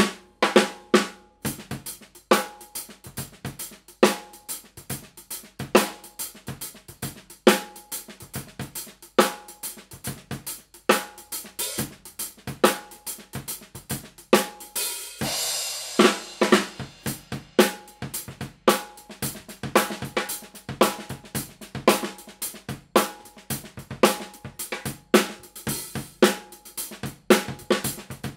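SCD Golden Ash Maple 14" x 6.5" snare drum with a Remo Ambassador X Coated batter head, played with drumsticks in a dense run of strokes and patterns. About halfway through, the strokes give way to a continuous wash for about a second.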